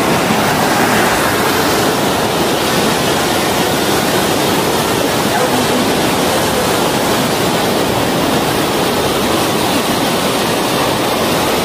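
Steady rushing of river water, a constant even hiss with no breaks.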